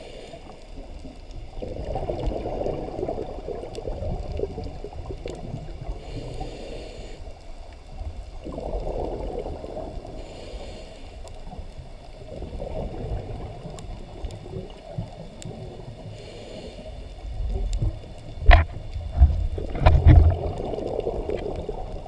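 Scuba diver's regulator breathing heard underwater: bubbling exhalations every few seconds with short hissy inhalations between them. A few loud low thumps near the end.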